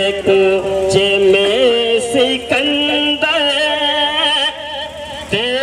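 Amplified devotional naat (Urdu praise song) in a melodic passage of long held notes that waver and glide in pitch, with no words clearly sung.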